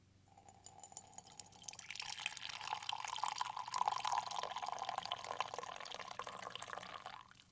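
Coffee poured in a steady stream into a ceramic mug, splashing and rising slightly in pitch as the mug fills. It grows louder over the first two seconds and stops abruptly just before the end.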